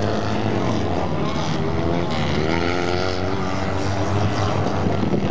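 Several kart cross racing karts' engines running at high revs as they race past on a dirt track, with the engine pitches rising and falling in the middle as karts pass by.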